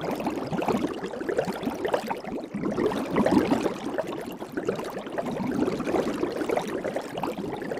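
Soap bubbles crackling and bubbling: a dense, continuous stream of many small pops and blips.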